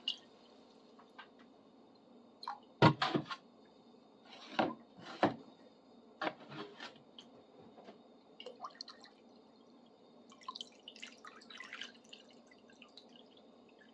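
Water dripping and sloshing as a baking-soda-coated wrench is stirred in a container, with a few sharp knocks against the container, the loudest about three seconds in, and a run of fainter splashing near the end.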